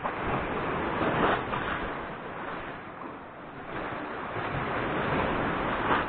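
Sea surf washing in and out, swelling about a second in and again near the end.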